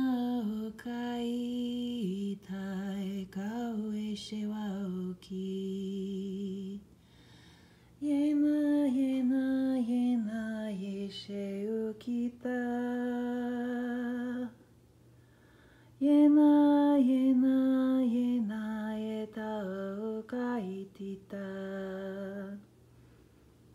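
A woman's solo voice sings a slow, unaccompanied melody like a chant or lullaby, with held, wavering notes. It comes in three long phrases with short silent pauses between them.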